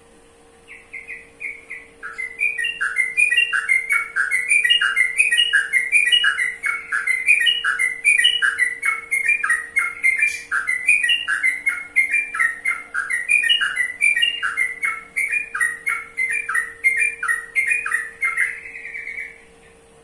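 Sooty-headed bulbul (trucukan) singing: a long, continuous run of quick chattering phrases, each a few rapid notes. It starts about a second in, builds up after two seconds, and stops just before the end.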